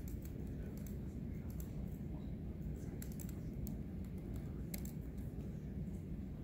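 Computer keyboard typing: scattered, irregular key clicks over a steady low room hum.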